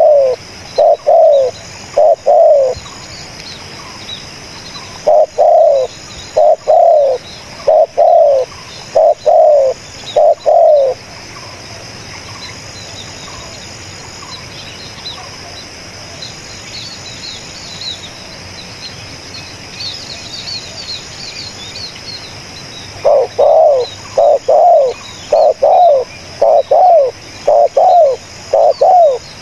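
Spotted dove cooing loudly in repeated phrases of short falling notes. The cooing stops for about twelve seconds in the middle, then starts again near the end, with faint chirps of small birds in between.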